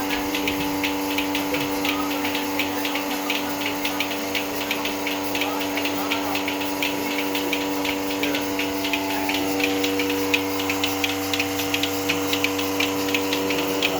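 Milking machine running: the vacuum pump's steady hum, with the pulsators' fast, even hissing clicks.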